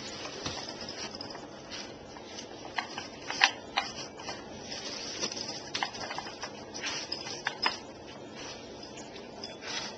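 Irregular clicks and knocks of a Dog Brick treat puzzle's pieces as a dog nudges and slides them to get at the treats.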